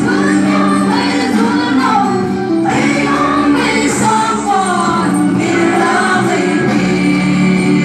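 A group of women singing a song together, their voices amplified through microphones.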